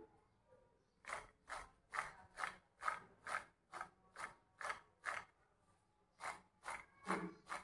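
Glass bowl being turned in short strokes on a hard glossy surface: a quiet, rhythmic scraping, about two and a half strokes a second, with a short pause about five seconds in.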